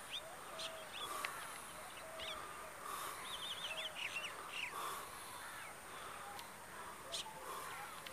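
Several birds calling: quick high chirps and a short rapid run of notes, over lower repeated calls, with a few sharp clicks.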